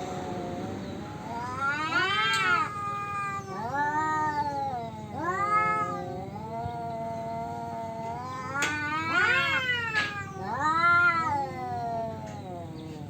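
Two tomcats caterwauling at each other in a territorial standoff: long, wavering yowls that rise and fall in pitch, one call overlapping the next, swelling loudest about two seconds in and again around nine to eleven seconds.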